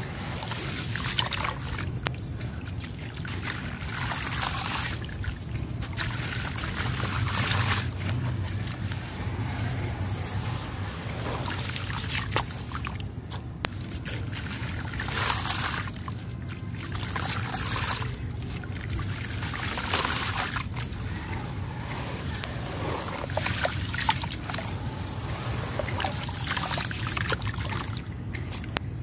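Hands stirring and kneading a watery sand-cement slurry in a basin, in irregular wet swishes and sloshes. Partway through, a dry sand-cement chunk is snapped apart and crumbled with gritty crunching.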